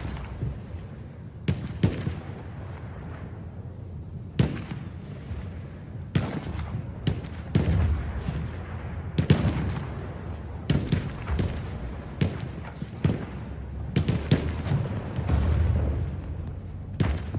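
Battlefield sound effect of World War I fighting: irregular gunshots and booms, roughly one a second and sometimes two close together, over a continuous low rumble of distant artillery.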